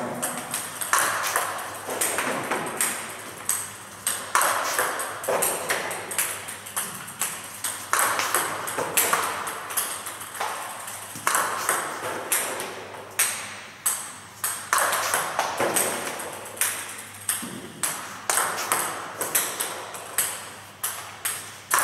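Table tennis ball clicking off the paddle and bouncing on the table, serve after serve, in quick clusters of sharp ticks every few seconds: a fast punch serve repeated again and again. Stray balls bounce and tick on the floor between serves, with a short echo after each tick.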